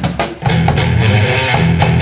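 Live band playing: a short drum fill, then electric guitar chords and drums come in together about half a second in and keep a steady beat.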